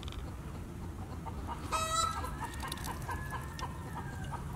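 Chickens clucking, with one sharp squawk about two seconds in followed by a long drawn-out call.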